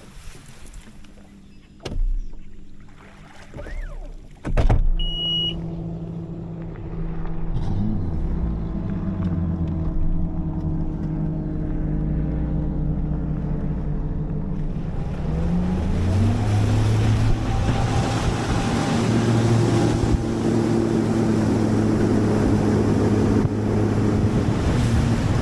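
Four-stroke outboard motor on a bass boat: a couple of knocks and a short beep, then the engine runs at low speed. About fifteen seconds in the pitch rises as the throttle is opened, and it runs at speed with wind and water rushing.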